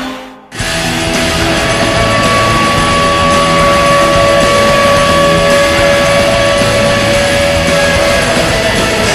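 The Vancouver Canucks' arena goal horn cuts off, and after a half-second gap loud rock music with electric guitar and drums starts up: the goal song that follows the horn.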